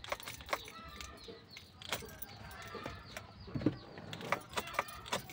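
Scattered light metallic clicks and jangles, with no starter cranking and no engine running.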